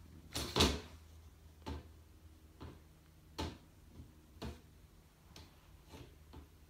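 Cat pawing at a metal floor vent register, which clacks against the hardwood floor in about ten irregular clicks, the loudest about half a second in.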